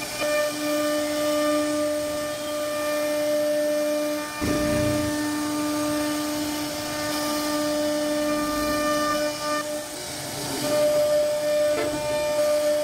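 CNC router spindle whining at a steady pitch as its bit cuts grooves into a wooden door panel, with a rough cutting hiss under the whine. About four seconds in, a lower rumble swells briefly.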